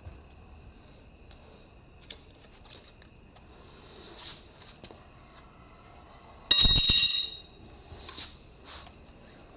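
Tire levers working a tire off a spoked motorcycle wheel: faint clicks and scrapes, then a loud metallic clank with a short ring about two-thirds of the way through, like a steel lever striking the rim.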